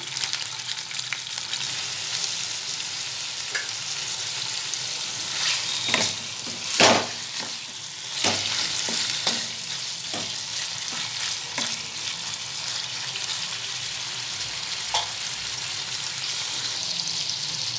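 Marinated chicken pieces sizzling in hot oil in a non-stick kadai, a steady frying hiss with a few sharp clacks and spits scattered through, the loudest about seven seconds in.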